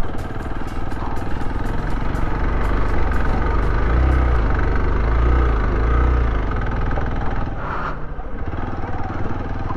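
Motorcycle engine running as the bike is ridden slowly, its revs rising and falling several times in the middle.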